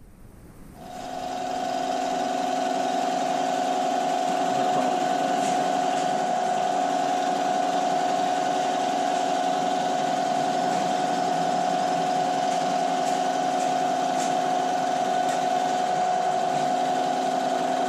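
Milling spindle of a Bridgeport EZ Trax CNC mill driving a 3/4-inch four-flute high-speed-steel end mill around the combustion chamber of an aluminium VW cylinder head, enlarging it for 94 mm pistons. The cut makes a steady, even tone that rises in over the first second or so.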